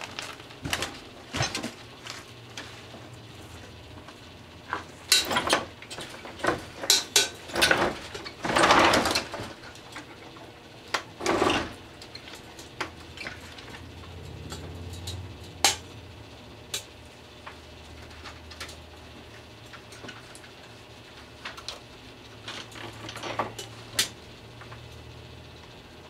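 Microwave oven running with a low hum while a 35-watt low-pressure sodium bulb heats on its plate; irregular sharp crackles and snaps come from inside, thickest in a cluster about five to twelve seconds in and again near the end.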